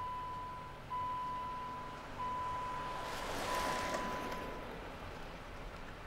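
An electronic beeper sounding one steady high tone in four long beeps, about a second and a quarter each with only short breaks between, stopping a little after the middle. A rushing noise, as of a passing vehicle, swells and fades over the middle.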